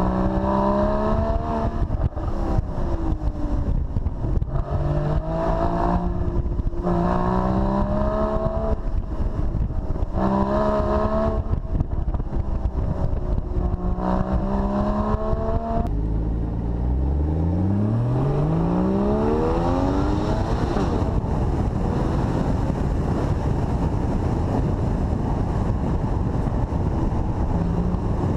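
Porsche Boxster GTS engine revving up through the gears in a series of rising pulls, each ending in a short drop as the gear changes. About two-thirds of the way through comes one long pull climbing from low revs, followed by a steadier run with road and wind noise.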